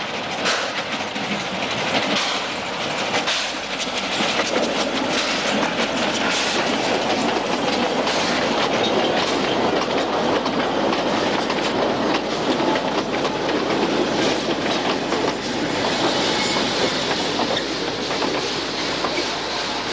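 A narrow-gauge steam train passing close by. The Mallet tank locomotive's exhaust chuffs in a steady beat as it comes up, then the coaches' wheels clatter over the rail joints as they roll past.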